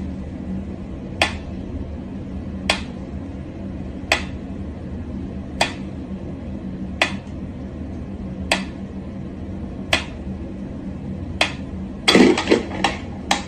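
Mechanical pyramid metronome ticking slowly, one sharp tick about every one and a half seconds, over a steady low hum. Near the end comes a cluster of louder knocks and rattles as a cat paws at the swinging pendulum.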